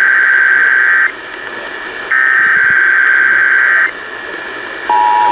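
Emergency Alert System SAME header: two buzzy digital data bursts of about two seconds each, a second of hiss between them. About five seconds in, the steady two-tone EAS attention signal starts, marking the start of a monthly EAS test on a radio broadcast.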